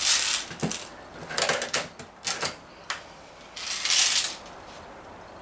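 Sharp mechanical clicks and rattling from handling a Daisy 340 spring-piston BB pistol between shots, with two short rushes of noise near the start and about four seconds in.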